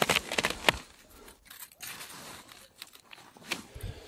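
Skis crunching and scraping over a hard, frozen snow crust. The crunching is loudest and densest in the first second, then thins out to faint scattered crunches.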